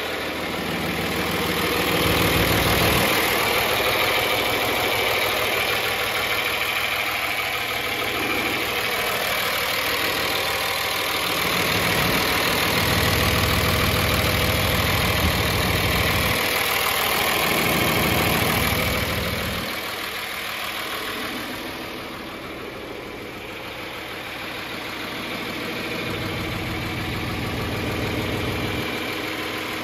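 John Deere 2955 tractor's six-cylinder diesel engine idling steadily, with low rumble that swells and fades several times and dips about two-thirds of the way through.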